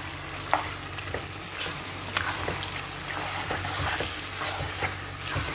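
Minced beef and chopped onions sizzling in a non-stick frying pan while a spatula stirs through them, with scattered short scrapes and clicks of the spatula on the pan.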